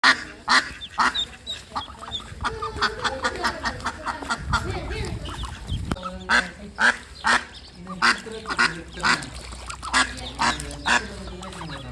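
Ducks quacking over and over, short calls at about two a second with a quicker run in the middle. A low rumble about halfway through.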